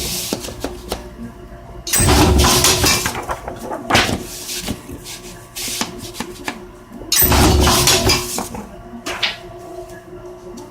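Paper corner-cutting machine for wrapping paper running two cutting cycles, about five seconds apart. Each cycle starts with a heavy thump, then about a second and a half of metallic clatter. A steady low hum runs underneath.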